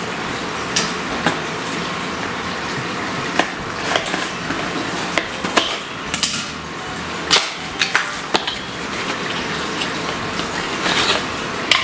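Scattered clicks, knocks and crinkles of a small humidifier's box and packaging being opened and handled, over a steady background hiss.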